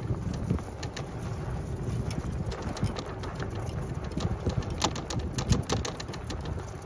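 Vehicle rolling slowly along a sandy woodland track: a steady low rumble with wind on the microphone. Scattered sharp clicks and crackles run through it, thickest in the second half.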